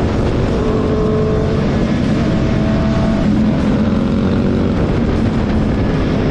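Suzuki GSX-S 750's inline-four engine running at track speed as the bike slows, heard from an onboard camera over a steady rush of wind noise. The engine note shifts pitch a few times.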